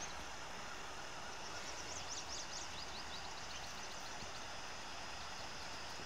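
Quiet rural outdoor ambience: a steady, even hiss, with a quick run of high, thin chirps about two seconds in.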